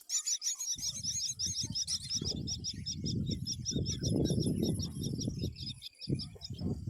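Myna nestlings begging: a fast, even run of short high chirps, about eight a second, fading in the second half. A low rumble runs beneath them from just under a second in.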